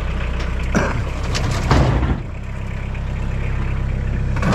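Tractor engine running steadily while scrap metal is loaded with its bucket, with a clank about a second in and a longer clatter of metal a little later, after which the engine settles lower.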